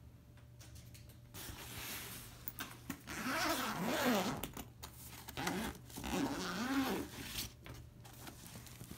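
Zipper on a soft insulated cooler bag being pulled open around the lid in two long pulls, about three and six seconds in, with the bag's fabric rustling around them.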